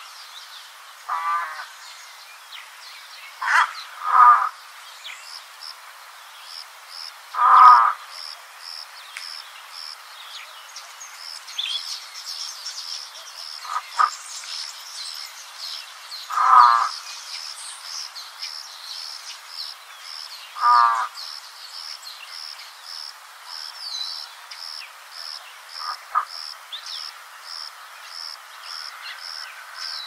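African spoonbill calling, about eight short raspy calls spaced a few seconds apart over a steady background hiss. From about halfway a faint high note also pulses about twice a second.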